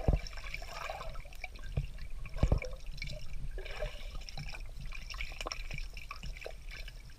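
Pool water picked up by a GoPro Hero 4 Black in its waterproof housing: muffled splashing and bubbling with a few low thumps in the first few seconds, then softer, steadier water sounds with the camera at the surface.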